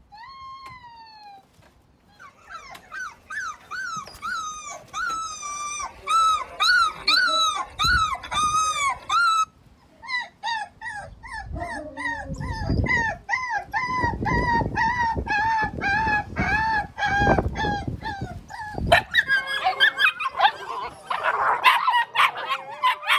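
Puppies crying and whining: a long run of short, high, rising-and-falling cries, one after another. Near the end it turns into a busier jumble of short yaps.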